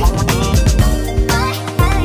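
Background music with a steady dance beat.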